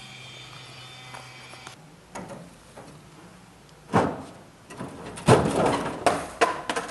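Skateboard on a rough, coarse street: a few sharp knocks of the board on the pavement, then a loud rush of the wheels rolling over gravelly asphalt with quick clicks, about five seconds in. A steady hum with held tones cuts off just before two seconds in.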